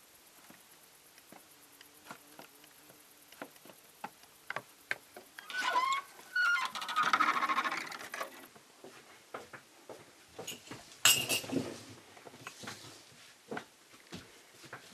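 Wooden plank door creaking on its hinges, a wavering squeak that bends up and down for a few seconds midway as it is swung shut. A single sharp knock follows as it closes, among scattered light clicks and steps on wooden boards.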